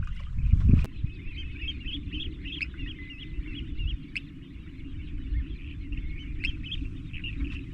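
Many birds chirping and calling steadily over a low background rumble, with a single low thump under a second in.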